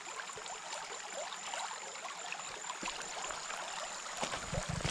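Shallow mountain stream flowing and babbling over stones, a steady rush of water. A few low thumps come near the end.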